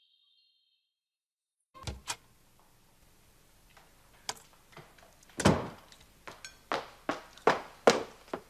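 Silence for about a second and a half, then two quick knocks and a run of footsteps on a hard floor, the steps coming about two and a half a second toward the end.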